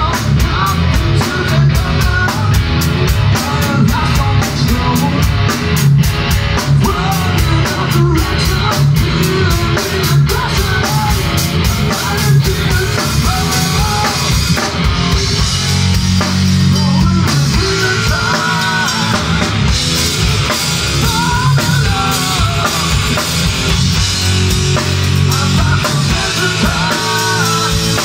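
Live hard rock band playing loudly: drum kit, electric guitars and a man singing. A fast, even drum beat drives the first half, and the singing stands out more in the second half.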